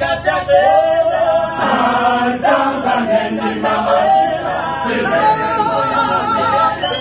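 Male choir singing a cappella.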